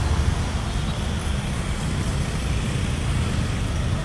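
Steady low rumble of road traffic from passing cars, with an even hiss over it.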